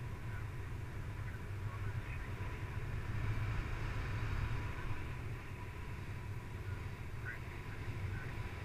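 Wind rushing over the camera microphone of a paraglider in flight: a steady low rumble and hiss, with a few faint short chirps over it.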